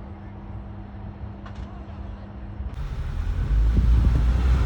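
Jet airliner engines at an airport. First a low steady hum with a faint steady tone, then, about two-thirds through, an abrupt switch to a much louder low rumble and rushing noise of a jet coming in to land close by, growing louder.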